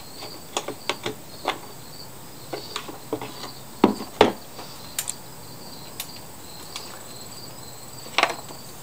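Scattered light clicks and knocks from handling the mower's plastic gas tank as it is lifted off the engine, with two sharper knocks about four seconds in. Insects chirp steadily in the background.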